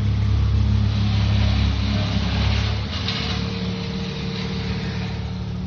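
Big truck's engine running nearby, really loud, with a heavy low rumble. About three seconds in the rumble drops off sharply, leaving a lower steady drone.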